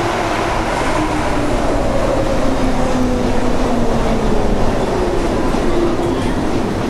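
Hamburg U-Bahn metro train pulling into an underground station and braking, its electric motor whine falling in pitch as it slows, over the steady rumble of wheels on rails.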